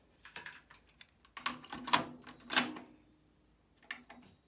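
Plastic clicks and clunks from a JVC TD-W317 dual cassette deck as its deck A cassette door is handled and shut, the loudest clunks about two and two and a half seconds in, followed by a single click of a front-panel button being pressed near the end.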